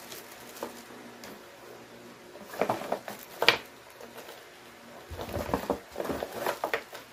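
Handling noise from an unboxing: small plastic-bagged accessories and a cardboard product box being handled, with scattered clicks and rustles. The sharpest click comes about three and a half seconds in, and the rustling grows denser over the last two seconds.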